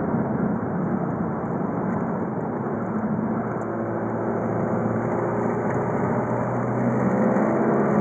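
VW Golf V 2.0 TDI four-cylinder diesel (BKD) running on the move, with engine drone and road noise inside the car. The engine note comes through more clearly about halfway in and rises slightly near the end as the car gently picks up speed.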